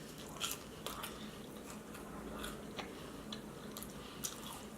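A person chewing a bite of breaded vegan chicken tender close to the microphone: faint, scattered wet mouth clicks and small crunches.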